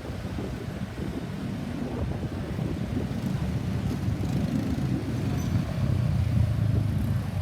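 Low rumble of a road vehicle's engine and traffic, growing louder in the second half. No siren is heard.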